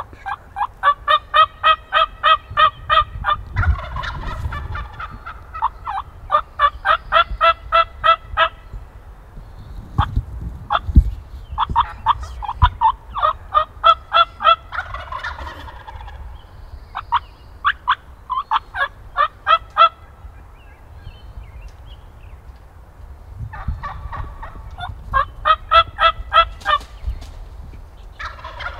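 Wild turkeys calling: several runs of rapid yelps, about five notes a second, with rolling gobbles mixed in. A single sharp knock about eleven seconds in.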